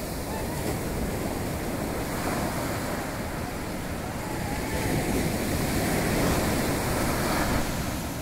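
Ocean surf washing onto a sandy beach, a steady rush that swells about five seconds in and eases near the end, with wind rumbling on the microphone.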